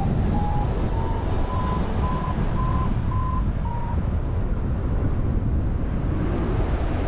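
Paragliding variometer beeping about twice a second, its pitch rising over the first few beeps and dipping slightly before the beeps stop about four seconds in: the climb tone that signals the glider is going up. Heavy wind noise on the microphone underneath.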